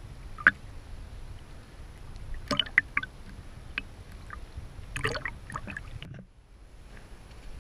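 Shallow water lapping and splashing against a camera held half-submerged at the surface, in scattered small drips and gurgles over a low wash, quietening about six seconds in.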